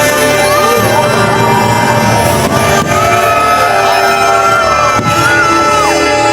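Loud show music with a singer holding long, gliding notes over a steady orchestral backing.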